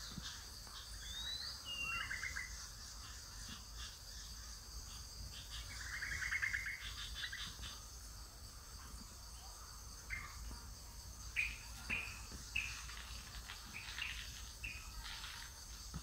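Wild birds chirping and trilling in bursts, with a run of short, sharp notes in the second half, over a steady insect drone.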